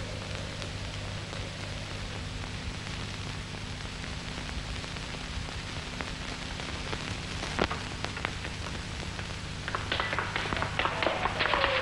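Steady hiss and low hum of an old film soundtrack, with a single sharp click about two-thirds of the way in. Near the end a quick run of light clicks starts, and falling notes of orchestral music begin to come in.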